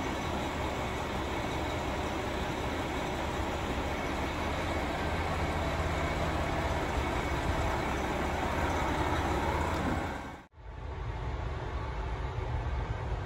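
Steady hum and whir of a Hakodate Liner electric train standing at the platform with its doors open. About ten seconds in the sound cuts out abruptly and comes back as a quieter, duller hum from inside the carriage.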